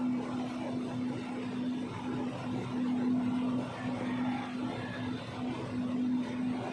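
A motor running steadily while a fuel tanker truck is being loaded: a low, even hum that wavers a little in strength.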